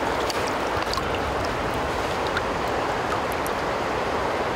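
Shallow river water rushing steadily over a gravel riffle, with a few faint small splashes as a fish is let go in the current.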